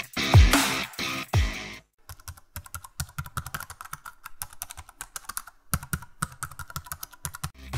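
Music with deep drum hits that fall in pitch, then, about two seconds in, a fast run of computer-keyboard typing clicks used as a typing sound effect.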